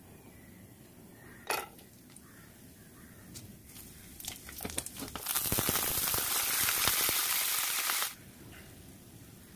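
Whole spices (bay leaf, cinnamon, peppercorns, small seeds) frying in hot oil in a nonstick pan: a sharp click early, then crackling that builds into a loud, even sizzle and cuts off suddenly near the end.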